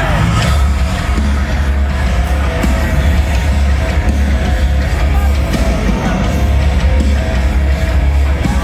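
Metalcore band playing live and loud, with heavy guitars over a dense low bass and drums; the heavy low end kicks in sharply at the start.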